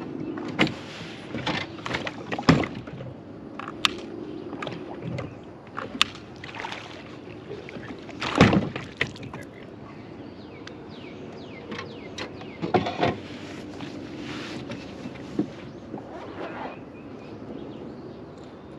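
Irregular knocks and bumps on a fishing kayak's hull, with a few loud hits about two and a half, eight and a half and thirteen seconds in, among the splash and slosh of water around the boat.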